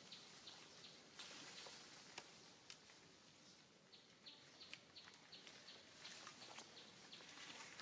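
Faint outdoor ambience: a run of short high chirps at about three a second, pausing for a few seconds in the middle and then resuming, with a couple of soft clicks.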